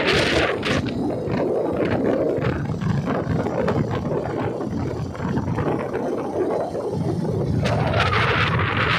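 Wind buffeting the microphone of a phone held out on a moving motorcycle: a steady rushing rumble, with a brighter hiss near the start and again near the end.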